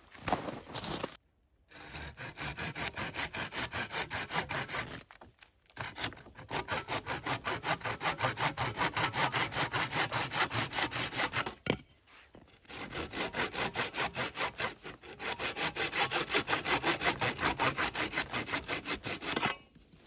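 Hand saw cutting through wood in quick, even back-and-forth strokes, in several long runs broken by short pauses.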